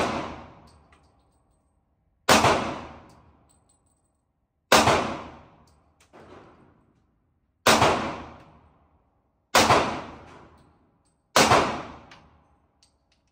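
Handgun shots fired one at a time, five loud shots about two to three seconds apart, each with a short echoing tail, and a quieter shot from farther off in between.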